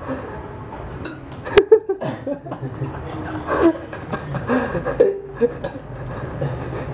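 A man hiccuping once, a short sharp hiccup about a second and a half in, part of a bout of hiccups that has lasted some fifteen minutes. Low voices follow.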